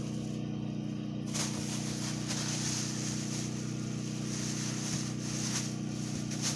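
Steady low hum of a running household appliance, made of several even tones that hold unchanged throughout, over faint room hiss.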